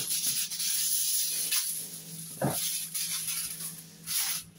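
Aluminium kitchen foil rustling and crinkling as a sheet is handled and pressed down over a pan, with a short knock about two and a half seconds in.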